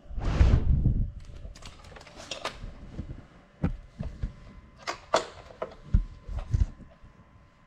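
Small FPV drone being handled, heard through its own onboard camera: a loud rumbling thud about half a second in, then a string of short knocks and clicks.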